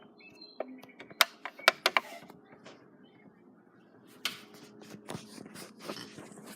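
A few sharp clicks and knocks about a second in, then a short rustle a few seconds later, over a faint steady room hum: handling noise of a camera being set in place.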